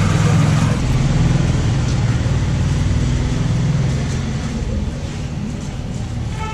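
Street traffic with a vehicle engine running close by: a steady low rumble that eases a little after about four seconds.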